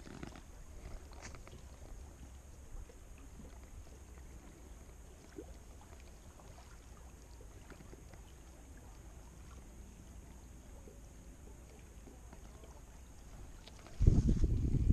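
Low wind rumble on the microphone with faint lakeside ambience and a few light clicks. Near the end, loud rubbing and bumping as a jacket sleeve brushes against the body-mounted camera.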